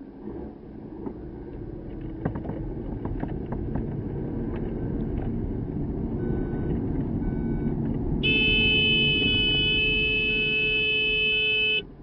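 A horn hidden inside the car, wired to the brake pedal, sounds in one long steady blast of about three and a half seconds, then cuts off suddenly: the brake has been pressed and released. Before it, the car runs, growing gradually louder, with a few clicks.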